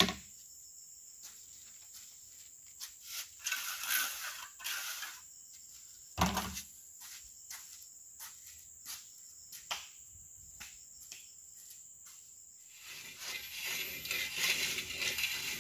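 Steel trowel scraping and smearing cement mortar during wall plastering: short scrapes and clicks, a heavier knock about six seconds in, and a longer rasping stretch of plaster being spread near the end.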